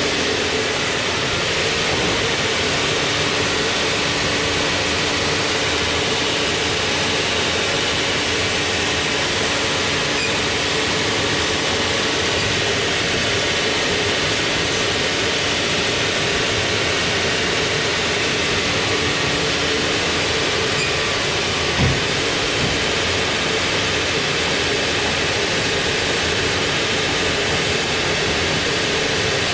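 Sawmill machinery running steadily: a loud, even noise with a constant hum, and a single knock about 22 seconds in.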